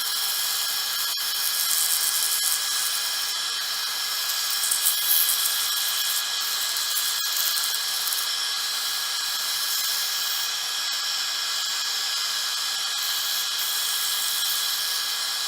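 Wood lathe running with a steady whine while 320-grit sandpaper hisses against the spinning cedar workpiece, the hiss swelling and easing as the paper is worked over it.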